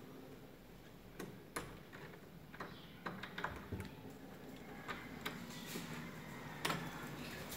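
Irregular light clicks and taps, about a dozen, from someone moving about and stepping out onto a tiled floor, growing a little louder near the end.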